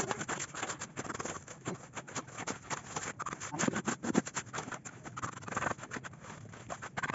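Masonry trowel and shovels working wet concrete and gravel: a dense run of irregular scrapes, clinks and knocks.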